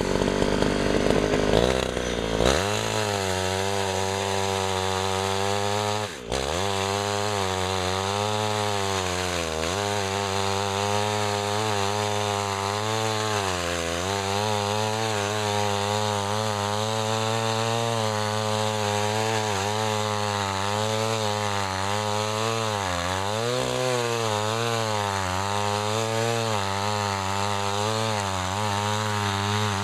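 Early-1970s Sears Craftsman 3.75 two-stroke chainsaw running, its engine pitch wavering up and down, with a brief dip about six seconds in.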